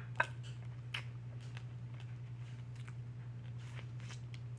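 Snow crab legs and shrimp being eaten: a sharp shell crack about a quarter second in and another about a second in, then faint crunching and chewing. A steady low hum sits underneath.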